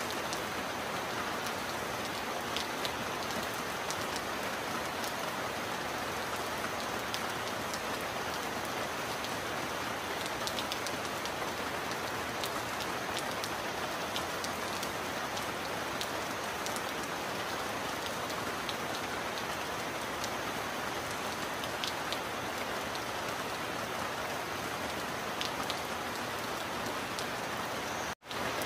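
Heavy rain falling steadily, with scattered sharper drop ticks. It cuts out for an instant near the end.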